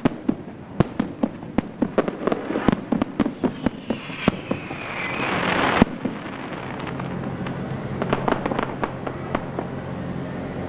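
Aerial firework shells bursting: a rapid run of sharp bangs and pops, then a hiss that builds for about two seconds and ends in a loud bang about six seconds in, followed by fainter scattered pops.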